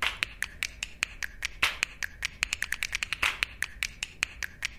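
Rapid, uneven sharp clicks, several a second, with a louder hissing swish about every second and a half.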